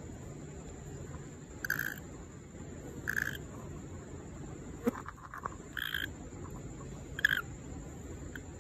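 Frog calling: four short calls in two pairs, each about a third of a second, over a steady high-pitched insect drone.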